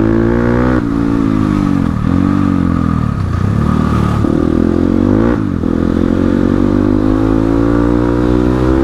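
Crossfire RM250 dirt bike's engine under way, the throttle opened and eased off so the pitch climbs and falls back several times, dropping sharply about a second in and again past the halfway mark.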